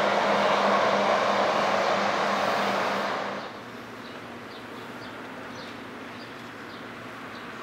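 Loud steady rushing noise of a passing vehicle with a low hum, cutting off suddenly about three and a half seconds in. After that comes a quieter steady background with faint high chirps, a few a second.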